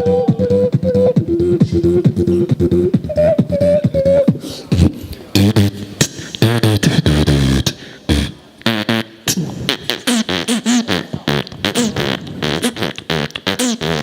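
Human beatboxing: a hummed melody line over a mouth-made beat, changing after about four seconds into a thick buzzing bass passage, then into rapid percussive clicks and snares for the rest.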